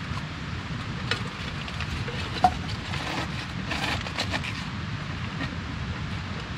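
Cabbage leaves crinkling and rustling as they are pressed down into a metal cooking pot, with light ticks and one sharp click about two and a half seconds in, over a steady low rumble.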